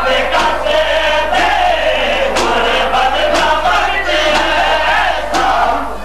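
A crowd of men chanting a Muharram noha (mourning lament), with sharp chest-beating blows (matam) falling in a steady rhythm about once a second.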